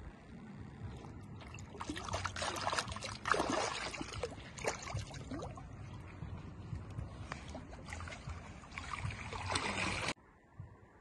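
Shallow lake water splashing and sloshing in irregular bursts as a common carp is released from a wet retaining sling; the sound cuts off suddenly near the end.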